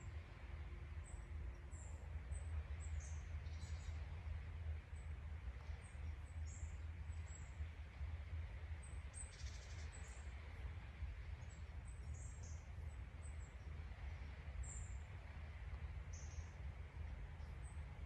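Forest songbirds chirping, with many short high calls scattered all through, over a steady low rumble.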